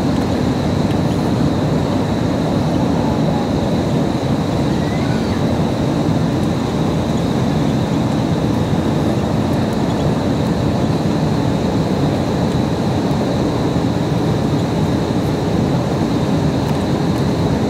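Steady cabin noise of a Boeing 747-8 on final approach: a constant rumble of airflow and its GEnx engines, with a thin, steady high whine above it.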